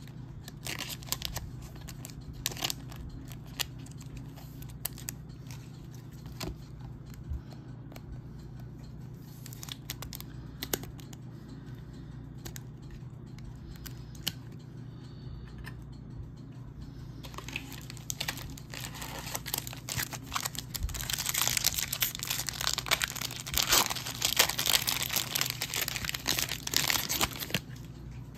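Trading cards handled with scattered light clicks and taps. Then, from about two-thirds of the way in, the wrapper of a Donruss Optic retail pack is torn open and crinkled, a dense crackling rustle that goes on for about ten seconds.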